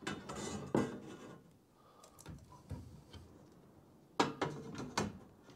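Rubbing and scraping of a Workbee Z1+ CNC's X carriage as it is worked onto the end of the gantry extrusion, in two spells: one at the start and one about four seconds in.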